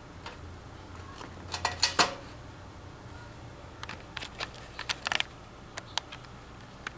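Sharp metallic clicks and small clatters of a fire alarm pull station being opened and reset by hand. The loudest cluster comes about two seconds in, and a second run of clicks follows about four to five seconds in.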